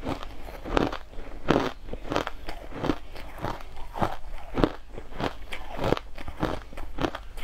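Crushed ice being chewed: a close run of sharp, irregular crunches at about two a second.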